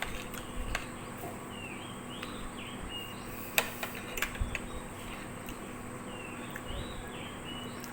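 A bird calling in short chirping phrases, in two bouts, over a steady background hum, with a few sharp clicks, the loudest about three and a half seconds in.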